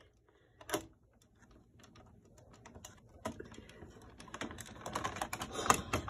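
Plastic clicks and rattles from a smoke alarm's housing and battery being handled. A sharp click comes about a second in, then a run of clicking and scraping grows louder as the cover is worked back onto the base.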